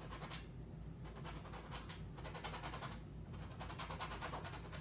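A stiff number 6 bristle brush scraping and scrubbing acrylic paint onto a canvas in several short, faint, scratchy strokes, about one a second.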